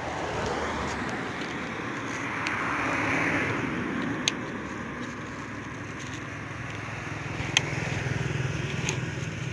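Road traffic: a vehicle passes, growing louder to about three seconds in and then fading, over a steady low engine hum. A few sharp clicks, the plastic bags and bottles being handled, come about four seconds in and near the end.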